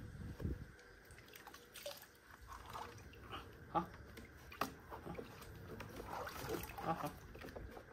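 Water sloshing and splashing faintly in a plastic tub as a small dog is lowered into it, with scattered short splashes.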